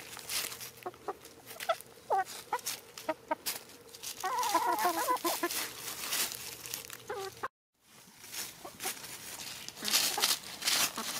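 Several hens clucking and muttering as they peck at food, with short single calls and a burst of chattering about four seconds in. Dry leaves crackle under their feet and beaks throughout. The sound cuts out for a moment about two-thirds of the way through.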